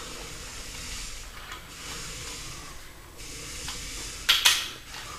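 Hand ratchet and socket snugging the main bearing cap bolts of a Chevy 350 block: a few faint clicks over a steady hiss, then two sharp metal clinks close together about four seconds in.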